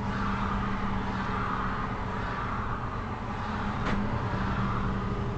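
Steady engine and road noise inside a moving vehicle's cabin, with a low constant hum and a single sharp click about four seconds in.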